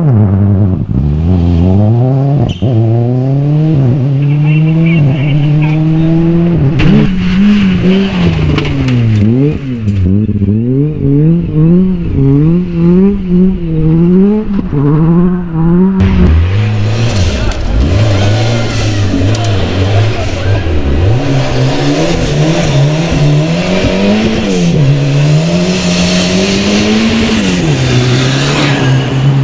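Rally cars one after another on a muddy stage, their engines revving hard, the pitch swinging quickly up and down as the wheels spin and the cars slide. It switches abruptly to a different car about a quarter of the way in and again about halfway.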